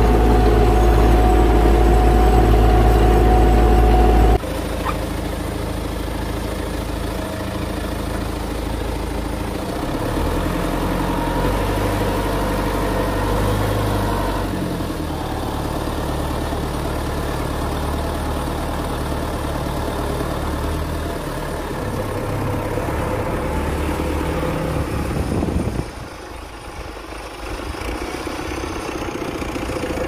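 Farm tractor's diesel engine running steadily, pulling a plough. The sound changes abruptly about four seconds in and drops away briefly near the end.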